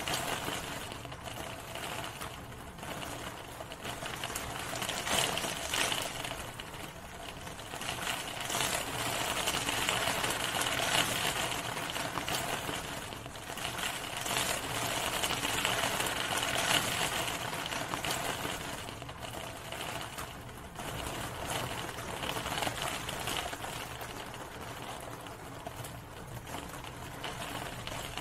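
Rain falling, a steady hiss that swells and eases every few seconds.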